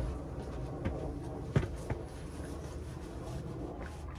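A few light knocks and thuds over a quiet, steady low rumble, the loudest about a second and a half in: someone moving about in a sailboat cockpit.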